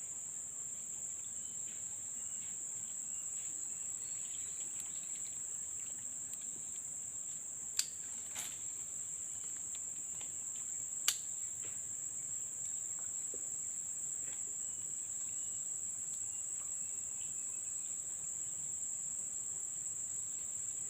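Steady high-pitched insect chorus, an unbroken shrill buzz, with two sharp clicks, about eight seconds in and again about three seconds later.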